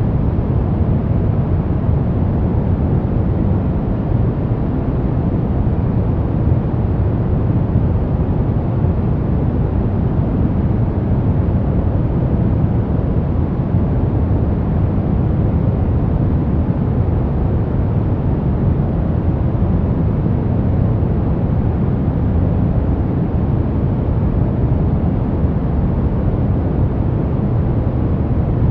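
Continuous noise for sleep and relaxation, billed as white noise. It is a deep, even rush, strongest at low pitches with only faint hiss on top, and it holds completely steady without any distinct events.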